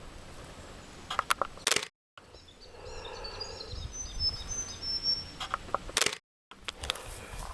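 Sharp camera handling clicks about a second in and again near the end, each cut off by a brief dropout. In between, a small bird sings a run of short, high, rising chirps over faint outdoor background.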